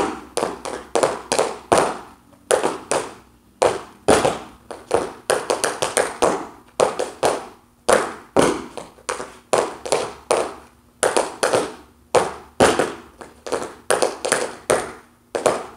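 Tap shoes of two dancers striking a dance floor, repeating the third offbeat time step (hop, shuffle, step, flap, step, stomp). The sound is clusters of sharp metal taps with short pauses between them.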